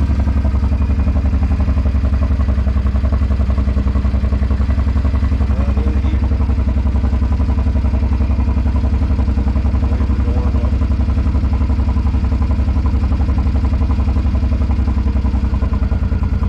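Suzuki Boulevard M50's 805 cc V-twin engine idling steadily and loud, just after being started, with an even low pulsing beat.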